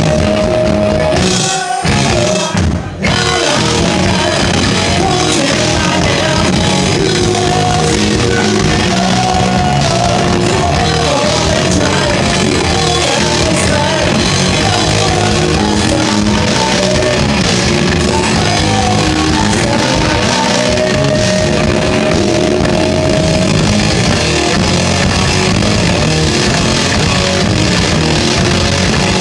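Heavy metal band playing live: guitars, bass and drums with a singer singing and shouting into a microphone. The music drops out briefly about two seconds in, then carries on.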